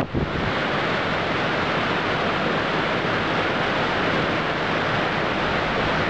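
Steady, even rushing of running water from a mountain stream.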